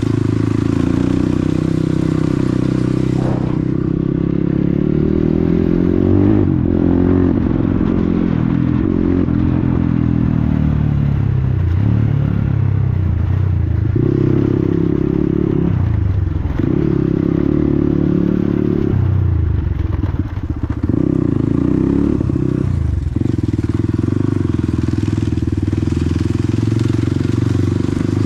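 Dirt bike engine with a loud exhaust, revving up and down as it is ridden. The note drops away briefly several times when the throttle closes, then picks up again.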